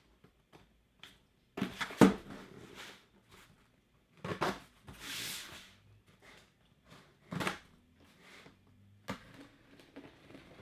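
Cardboard mystery box being handled and opened: several separate knocks and thumps, the loudest about two seconds in, and a short scraping hiss of cardboard or tape around the middle.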